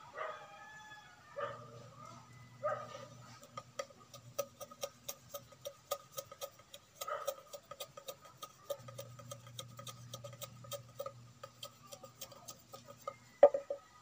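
Machete blade tapping and scraping a thin green bamboo stick in quick, light strokes, a run of sharp clicks several times a second. Near the end comes one loud knock as the machete is set down on the wooden stool.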